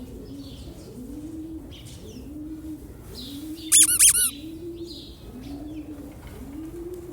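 Low cooing bird calls repeating about once a second, with a short burst of loud, high peeping calls near the middle.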